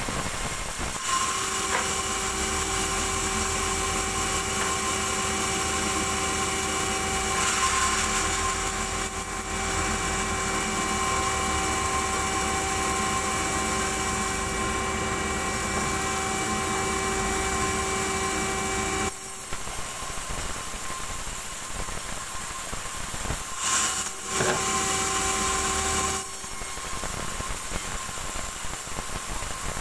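Large vertical band saw running and cutting small tazak logs into slabs, a steady whine over the rasp of the blade in the wood. About two-thirds of the way through, the whine drops away for a few seconds, comes back briefly, then drops again.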